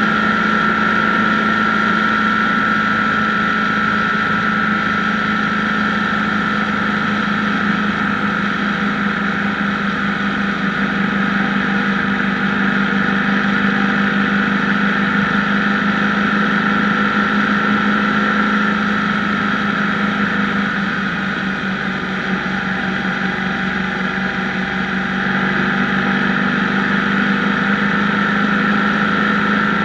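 BMW R1150GS boxer-twin engine running steadily with a loud, even drone while the motorcycle is ridden, dipping slightly in level for a few seconds about two-thirds of the way through.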